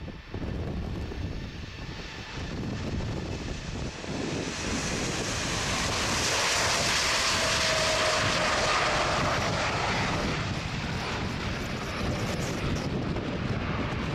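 The four GEnx turbofans of a Boeing 747-8 freighter at takeoff thrust as it rolls, lifts off and climbs away. The jet noise swells about four seconds in and is loudest as the aircraft passes, with a faint, slightly falling whine, then stays strong as it climbs out.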